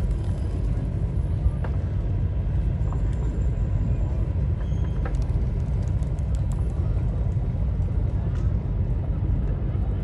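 Steady low outdoor rumble of background noise, with a few faint clicks and faint high chirps scattered through it.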